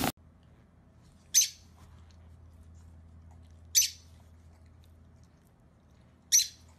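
Lovebird giving three short, high-pitched chirps, each about two and a half seconds apart.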